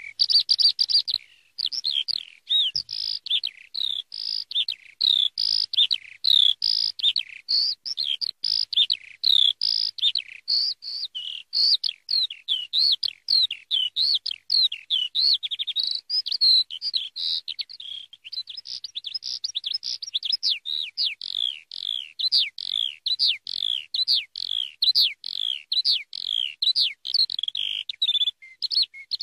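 Eurasian skylark singing: a long, unbroken stream of rapid, high chirps and warbled trills.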